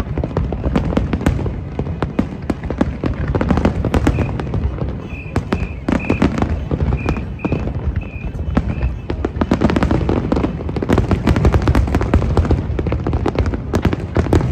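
Fireworks display: a dense, continuous barrage of rapid crackling bangs and booms, with a low rumble under them.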